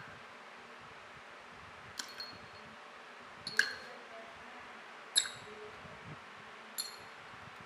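Small metal planetary gear parts from a Black & Decker BDCHD18 hammer drill's gearbox dropped one at a time into a glass tumbler of paint thinner, each landing with a short, bright clink against the glass. Four clinks, about a second and a half apart, over a faint steady hiss.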